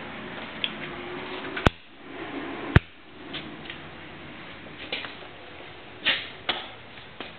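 Footsteps scuffing on concrete, a few soft steps spread out. Two sharp clicks about a second apart in the first half, each followed by a brief dropout.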